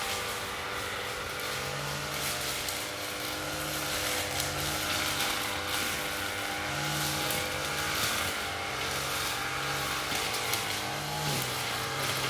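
Lawn mower engine running steadily, its low note swelling and dipping slightly about once a second.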